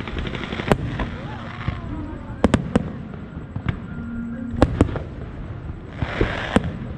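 Aerial firework shells bursting: about six sharp bangs a second or two apart, some in quick pairs, with a rush of hiss just before the last one. People's voices are heard underneath.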